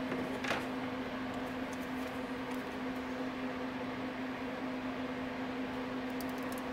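Steady mechanical hum, one low tone with a fainter tone above it, with a few faint small clicks from handling wire terminals.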